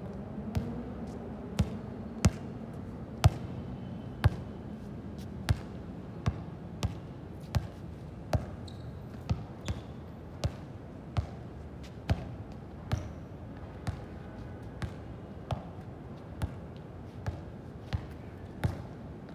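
A steady series of sharp thuds, a little under one a second, over a low background hum.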